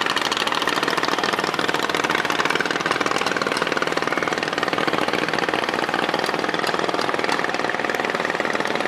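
A boat's engine running steadily with a fast, even chugging.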